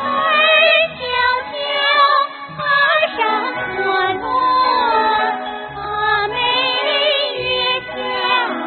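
Three women singing a song together into handheld microphones, their voices wavering with vibrato, over musical accompaniment.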